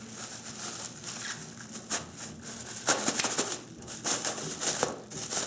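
Plastic packaging crinkling and rustling in a run of small clicks and knocks, with the sound of a rail being worked out of its package.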